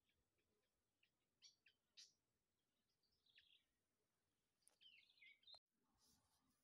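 Near silence with a few faint, scattered bird chirps and short descending calls.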